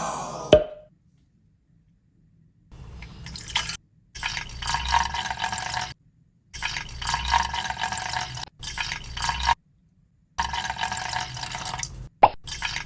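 Liquid dripping and trickling, heard in about six short stretches that start and stop abruptly, with silent gaps between them.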